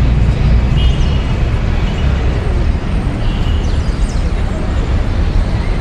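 Steady low rumble of city street traffic, the engine and tyre noise of passing cars and buses, with faint voices.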